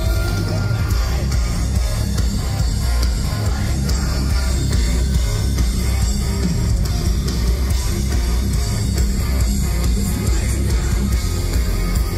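Live rock band playing loud through a large outdoor PA, with electric guitar over a heavy, booming bass and drums.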